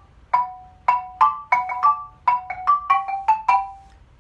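Xylophone played with two mallets: a quick phrase of about a dozen notes, many struck two at a time, the last one left ringing. It is a practice run of a short exercise in D major.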